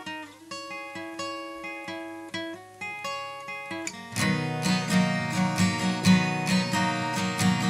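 Guitar music with plucked single notes. About four seconds in, a louder, fuller strummed passage with low notes comes in.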